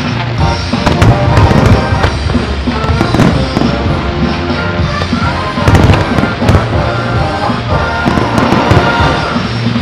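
Aerial firework shells bursting in a rapid, uneven series of bangs and crackles, the densest cluster about six seconds in, over loud music set to the display.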